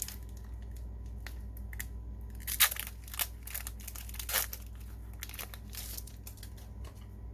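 Foil trading-card booster pack wrapper being torn open and crinkled by hand, in irregular crackles, the sharpest about two and a half seconds in.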